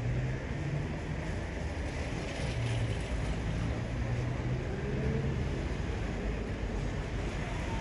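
Steady low rumble with a low engine hum that comes and goes: vehicle noise.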